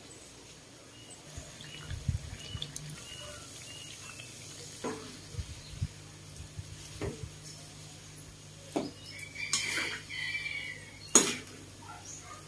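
Metal spatula stirring and turning food in a wok: scattered scrapes and clinks against the pan, the sharpest clink near the end.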